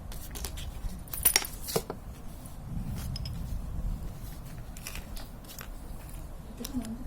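Small metal clicks and light scraping from handling and cleaning the parts of a bicycle freewheel, with two sharper clicks a little over a second in.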